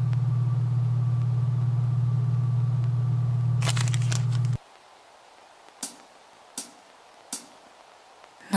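A steady low hum that cuts off suddenly about four and a half seconds in, with a few crackling clicks just before the cut. Then a faint hiss with three soft clicks, evenly spaced a little under a second apart.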